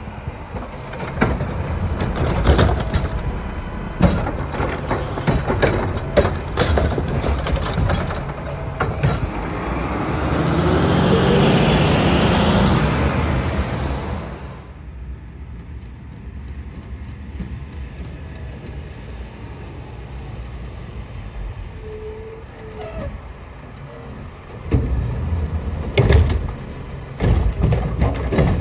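Mack LR garbage truck's diesel engine driving close past, rattling, with a hiss from its air brakes. After it quietens to a steady run, loud bangs near the end as the Curotto-Can arm lifts a trash cart and tips it into the hopper.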